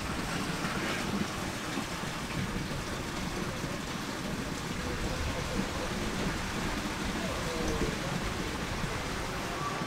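Steady, even hiss of water.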